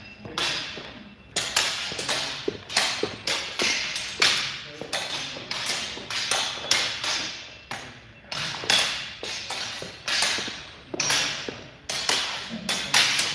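Steel practice swords clashing in drills, an irregular run of sharp metallic strikes about two a second, each with a bright ringing tail.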